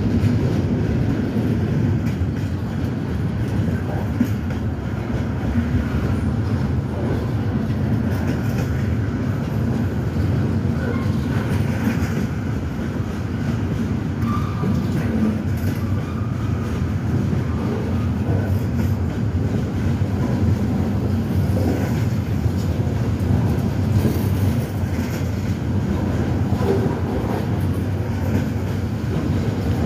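Freight train cars rolling past below, a steady rumble and clatter of wheels on the rails, with a few brief faint squeals about halfway through.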